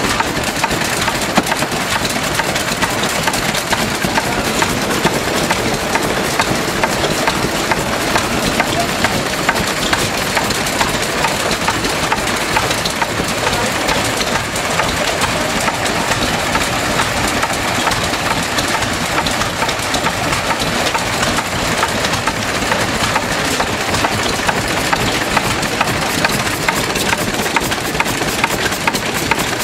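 Vintage stationary engines, a Lister among them, running together: a steady, fast mechanical clatter with no let-up.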